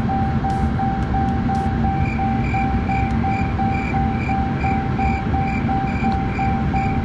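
Ram 3500 dashboard warning chime beeping steadily about twice a second. About two seconds in, a second, higher chime joins it at a similar rate, over a low steady hum. The chimes go with the warning lights lit across the dash during a failed speedometer tire-size reprogramming attempt.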